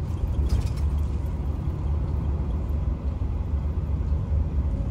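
Steady low rumble of a truck's engine running, heard from inside the cab.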